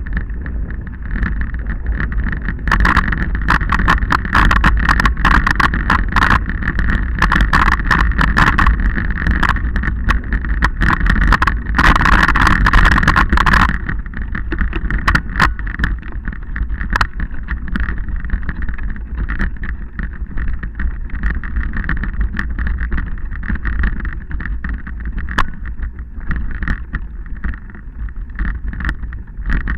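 Wind rushing over the microphone of a camera moving along a rough stony dirt track, with a constant low rumble and many sharp rattles and crunches from riding over the stones. The rush is heaviest in the first half and eases about 14 seconds in.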